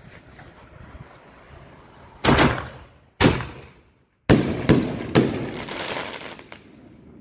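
Consumer aerial fireworks going off: a loud report a little over two seconds in and another about a second later, then a quick run of reports with a crackling trail that fades away.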